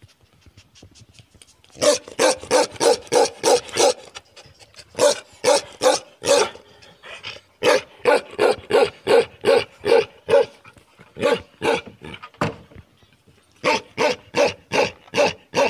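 Gaddi dog (Himalayan sheepdog) barking in rapid volleys of about four barks a second, with short pauses between runs. The barking is faint for about the first two seconds, then loud.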